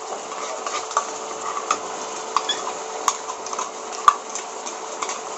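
A metal spoon scraping and clinking against a steel bowl as thick green herb paste is emptied into a kadai, with irregular taps and the sharpest clink about four seconds in. Under it, the pan's faint sizzle and a steady low hum.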